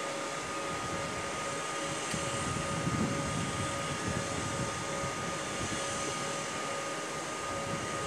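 Steady outdoor noise: an even rushing hiss with an uneven low rumble that swells about three seconds in, under two faint, steady high-pitched tones.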